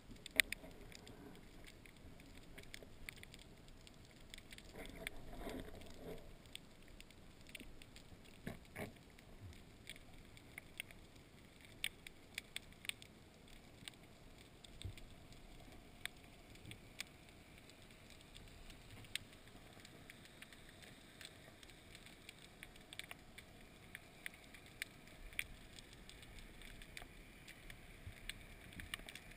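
Faint underwater ambience heard through an underwater camera: scattered, irregular sharp clicks and crackles over a low hiss, with a brief low rustle about five seconds in.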